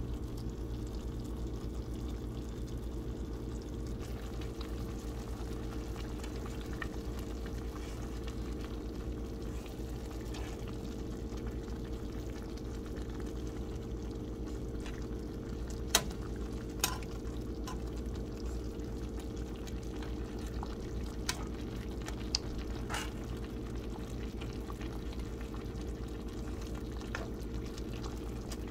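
Fried pompano simmering in a tomato-and-onion sauce in a pan: steady bubbling and frying over a constant low hum, with a handful of sharp clicks past the middle.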